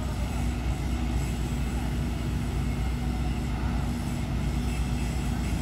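Diesel engines of heavy cranes running steadily as they hold a steel bridge girder aloft: a constant low drone with a steady hum.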